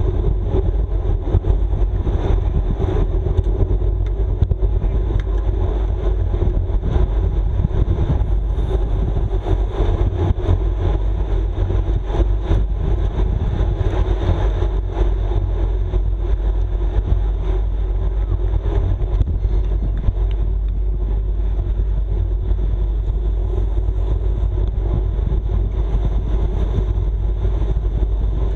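Steady wind rush over the microphone of a road bike ridden at racing speed, mixed with continuous tyre noise on the asphalt.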